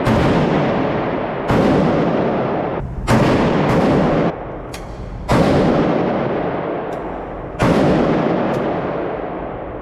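Gunshots from firearms at a shooting range, about six loud shots fired at uneven intervals, each followed by a long, ringing decay. A few fainter, sharper cracks fall between them.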